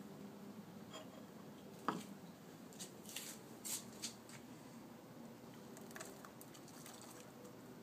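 Kitchen handling sounds: a sharp knock of the ceramic plate about two seconds in, then soft wet rustles and light taps as diced tomato and cucumber slide off the plate into a pot of couscous.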